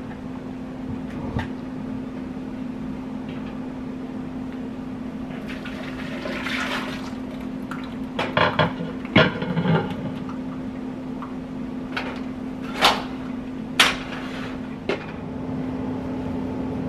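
Liquid poured from a plastic bowl into a stainless steel stockpot, a rushing splash partway through, followed by several sharp knocks of the bowl and pot. A steady low hum runs underneath.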